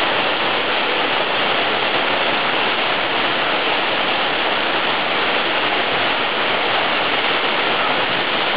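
Mountain waterfall pouring into a canyon pool: a steady, unbroken rush of falling water.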